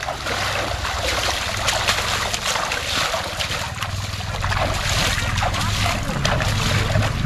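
Water splashing and trickling as an elephant is bathed, with many small splashes over a steady low rumble.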